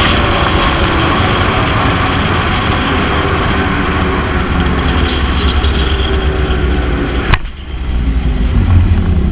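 Rush of wind over a helmet action camera and a zip line trolley running fast along its steel cable, with a faint whine in it. A sharp clack a little over seven seconds in as the trolley hits the brake at the end of the line, after which the rush drops to a lower rumble.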